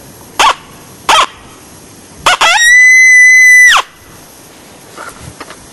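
Coyote howl imitated on a howler call: two short sharp barks, then a quick yip rising into one long high, steady howl that drops off at its end. The call is meant to draw a coyote out to the hunters.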